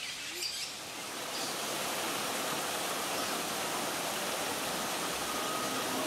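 A few short, high bird chirps in the first second, then a steady rushing noise of flowing water that swells in and holds.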